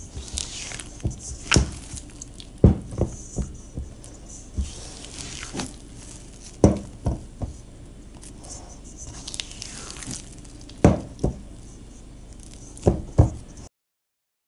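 A hand stretching and folding soft sourdough dough in a stainless steel bowl during the fourth fold of bulk fermentation: irregular wet squelches and slaps, with sharp knocks of hand and dough against the bowl. The sound cuts off about a second before the end.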